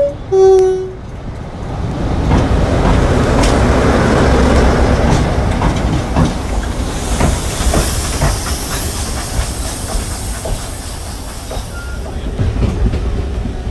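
Class 47 diesel locomotive's two-tone horn: the end of the high note and then the low note in the first second, loudest of all. Then the locomotive's engine running and its wheels clicking over the rail joints as it passes close by, with a hiss of steam from about the middle for a few seconds.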